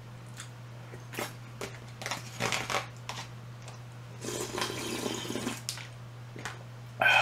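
Eating and table sounds: a few light clicks, then crunchy, rustling bursts of food being handled and chewed, over a steady low hum.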